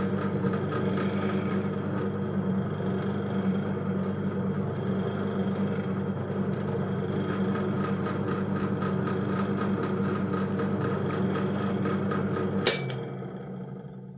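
SK11 SDP-600V 600 W bench drill press running steadily with an even motor hum, being checked for its running noise after repair. Near the end a sharp click, after which the motor winds down and fades out.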